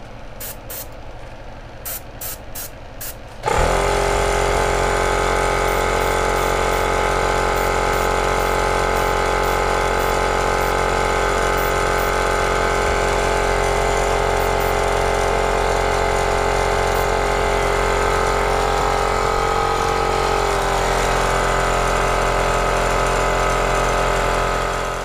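Handheld hot-air dryer switching on about three and a half seconds in and blowing steadily with a motor whine, heat-setting freshly airbrushed paint on a crankbait. Its pitch dips slightly about twenty seconds in, and it dies away near the end. A few short ticks come before it.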